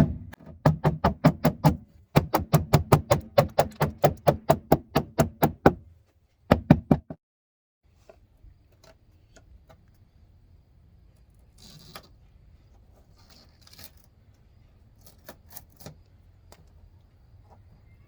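Rapid hammer blows on car-body sheet metal, about five strikes a second, with a short break in the middle, working a separated body seam back into place. About seven seconds in the hammering stops and only faint scattered ticks follow.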